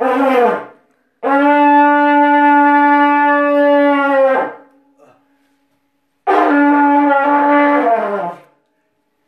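A long spiralled animal horn blown like a shofar, loud: a short blast, then one long steady note held for about three seconds, then a third blast of about two seconds that breaks once and sags in pitch at its end.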